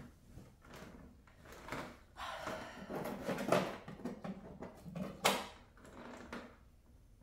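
Rustling and irregular light knocks of things being handled and set down, with two sharper knocks about three and a half and five seconds in.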